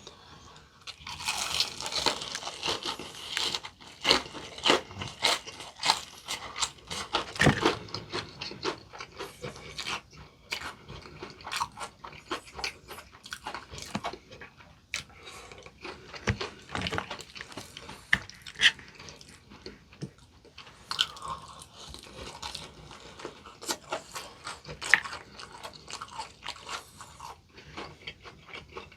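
Close-miked crunching and chewing of crispy potato-coated fried chicken: a long run of irregular crisp bites and chews.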